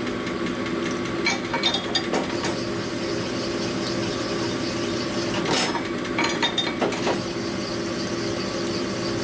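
Rod honing machine running steadily as a shovelhead connecting rod's big end is honed on the stone, with metal clicks and scrapes as the rod is worked, taking a little more out of the bore to bring it to size.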